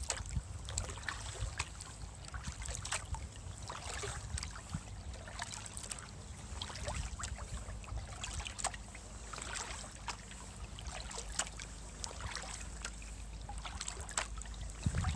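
Kayak paddle strokes in calm canal water: irregular small splashes and drips as the blades dip in and lift out, over a low steady rumble.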